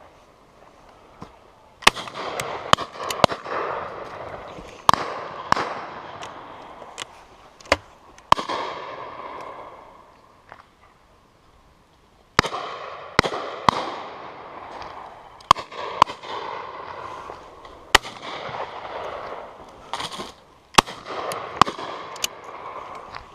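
Shotguns firing at driven pheasants: a long run of shots from several guns along the line, some loud and close, others fainter, each one echoing. There are two spells of shooting with a lull of a couple of seconds in the middle.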